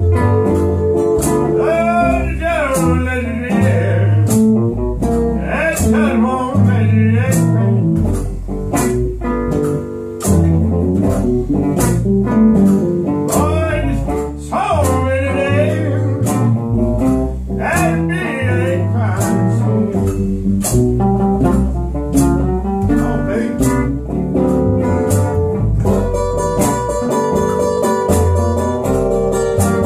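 A small live band playing: a plucked upright double bass keeps a steady low line under acoustic guitar. Bending, wavering melody phrases come in every few seconds.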